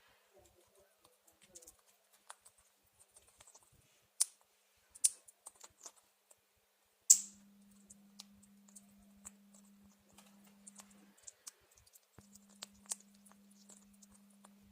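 Pet parrot biting and chewing guava: scattered sharp clicks and crunches from its beak, the loudest about seven seconds in. A steady low hum starts at that moment, drops out for about a second near eleven seconds, and returns.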